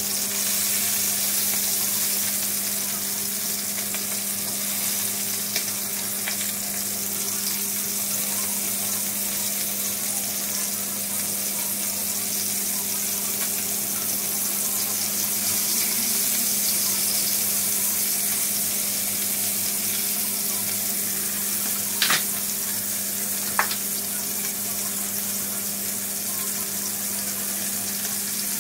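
Needlefish frying in hot oil in a pan, a steady sizzle over a low steady hum. Two sharp clicks near the end come from the fork used to turn the fish.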